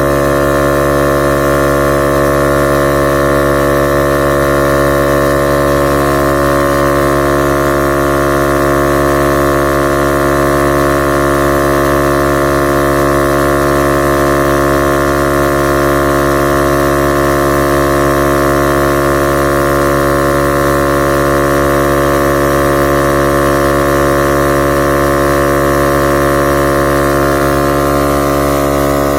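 Portable 12 V tire inflator's compressor running steadily at full load, pumping up a car tire from about 15 psi toward a 32 psi preset.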